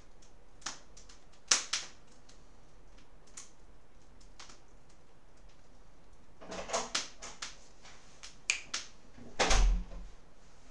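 Graphite pencil working on paper: a few sharp ticks, then short scratchy shading strokes about six and a half seconds in, ending in a louder scrape with a low bump against the table near the end.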